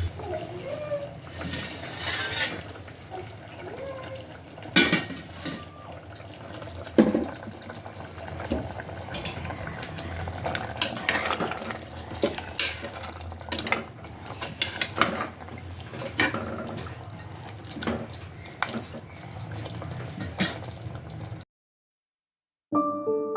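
Kitchen clatter: steel utensils and dishes clinking and knocking, with water, over a steady low hum. Near the end it cuts off suddenly and soft piano music begins.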